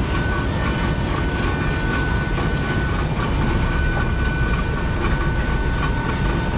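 Heavy harvest machinery running steadily: a deep engine rumble with a steady high whine over it.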